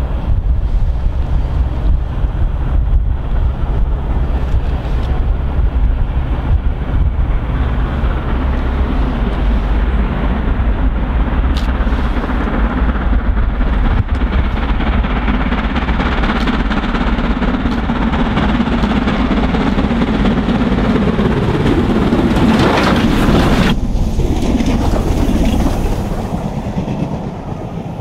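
Steam train double-headed by two LMS Stanier Class 5 4-6-0 locomotives, working hard as it approaches and passes, with a heavy low rumble. The sound peaks in a brief loud burst as the engines go by, then falls back as the carriages roll past.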